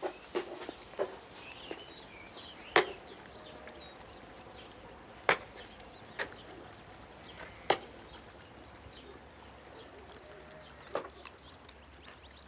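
Outdoor farmyard ambience: small birds chirping, and five sharp knocks spread out at irregular intervals. The loudest knocks come about 3, 5 and 8 seconds in.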